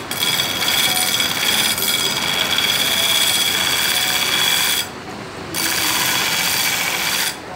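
Belt grinder sanding a steel knife blade to a distal taper: a loud, steady grinding hiss with a high whine while the blade is pressed to the belt. The blade comes off the belt briefly about five seconds in and again near the end, and the grinding drops away each time.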